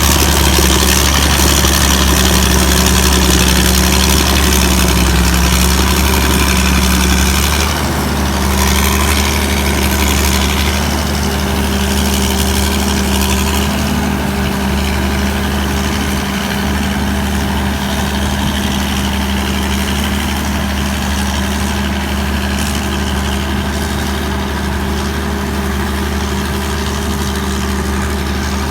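Hino J08C six-cylinder diesel engine of a TAMCO combine harvester running steadily, a little quieter from about eight seconds in.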